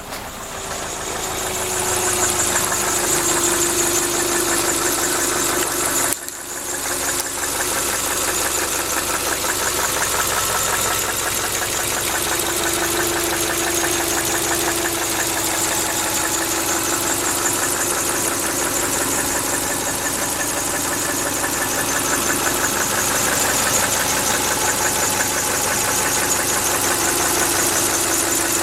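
2000 Subaru Outback's EJ25 2.5-litre flat-four engine running with a steady, rapid knock. The knock is present all the time, warm or cold, and the owner cannot tell whether it is rod knock or piston slap.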